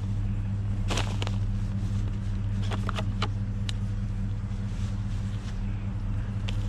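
Vehicle engine running with a steady low drone, with a few sharp clicks and knocks over it about a second in, around three seconds in and near the end.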